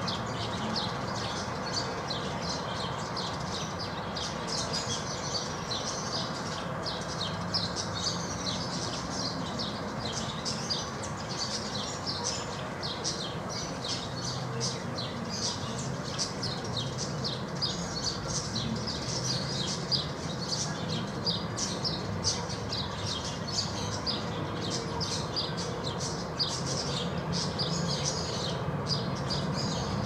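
Many small birds chirping and twittering without a break, a dense chatter of short high calls, over a steady low background noise.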